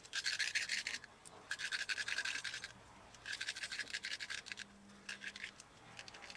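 Ratchet wrench clicking in quick bursts, four strokes with short pauses between them, as the mounting bolts of a skateboard truck are being undone.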